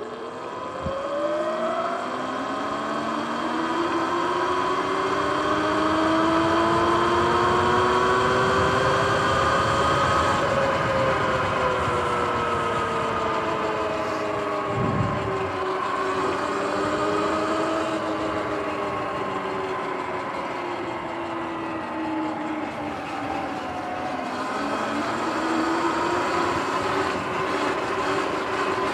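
Sur-Ron X electric dirt bike's motor and drivetrain whining, its pitch rising with speed over the first ten seconds, sinking, then rising again near the end, over steady tyre and wind noise. A brief low thump about halfway through.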